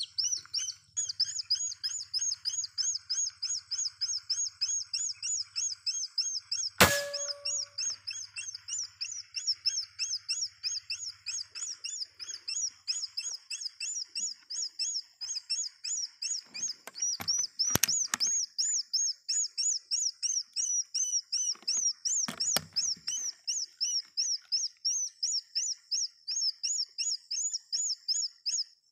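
Barred rail call played from an electronic bird caller as a lure: a loud, high-pitched chirp repeated about three times a second without a break. A single sharp crack about seven seconds in, and a few fainter clicks later.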